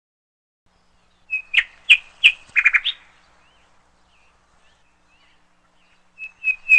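Bird chirping: a quick run of short, sharp, high chirps about a second in, then a few faint notes, and another run of chirps near the end.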